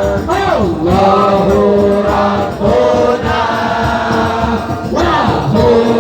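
A group of voices chanting together in Arabic: Islamic devotional chanting, with long held notes that slide in pitch.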